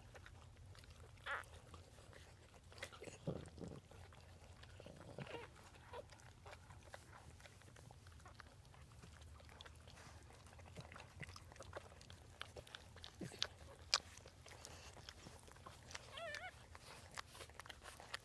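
Dachshunds licking a newborn puppy clean: faint wet licking and smacking clicks, scattered and uneven. A short, high, wavering squeak comes near the end.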